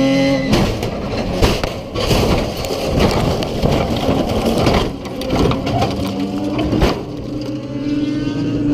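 Race car rolling over, heard from inside the cabin: the engine note is cut by a string of heavy impacts, with crunching and scraping of bodywork as the car tumbles. About two-thirds of the way through, the engine note comes back under the last knocks.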